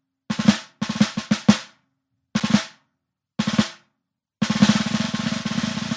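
Snare drum opening a recorded song: a few short rolls separated by pauses, then a continuous roll from about four and a half seconds in.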